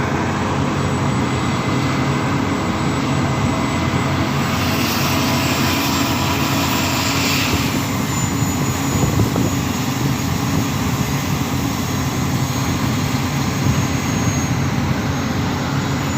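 Heavy diesel mining machinery running steadily with a loud, low, continuous drone. From about five to eight seconds in, a hiss rises over it.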